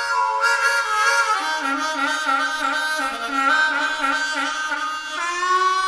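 Outro music on harmonica: a melody of several reed notes sounding together, with bent notes, settling into a long held chord near the end.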